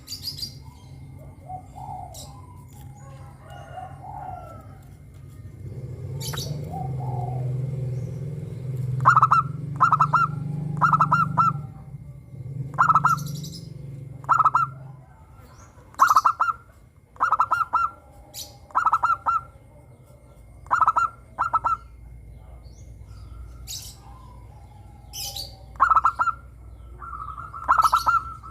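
Local zebra dove (perkutut) cooing in repeated phrases of short clear notes with pauses between them, starting about a third of the way in. Sharp high chirps sound through it, with a low rumble in the first half.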